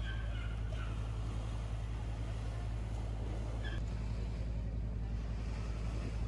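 A steady low rumble, with a few faint, brief higher-pitched sounds near the start and about four seconds in.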